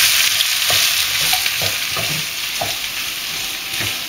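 Sliced onion and bell peppers sizzling in oil in a frying pan, a steady hiss, while a wooden spatula stirs them, knocking and scraping against the pan every half-second to second.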